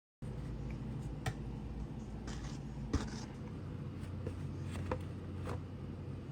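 Eating sounds: a few sharp clicks and short soft crunches over a steady low hum.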